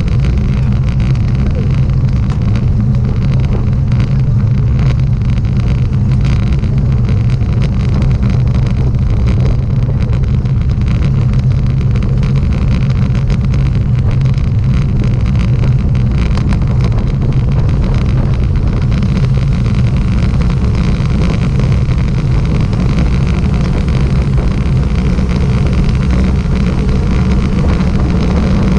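A motor vehicle's engine running at a steady speed, a continuous low drone mixed with wind and road rush.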